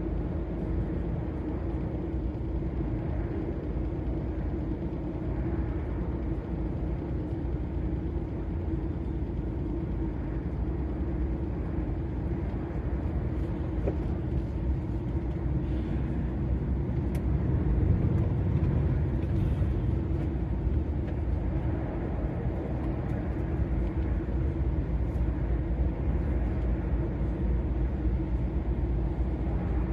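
DAF XF 480 lorry cruising on the motorway: a steady drone of its diesel engine and low road rumble, swelling a little just past the middle.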